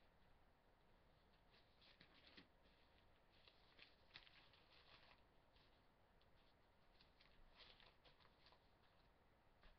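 Near silence, with faint irregular rustling and soft clicks of paper pages being handled and turned.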